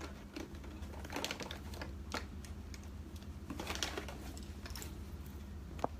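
Scattered light clicks and short rustles of small items being handled, with one sharper click near the end, over a steady low hum.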